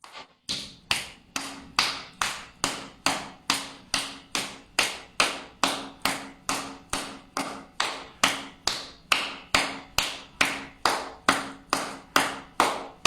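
Steady rhythmic slapping of a cupped, hollow palm on the shoulder in meridian-tapping self-massage, about two to three even slaps a second.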